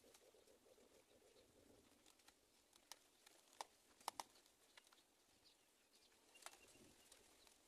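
Near silence, with a few faint scattered clicks and taps, the strongest a little after the middle.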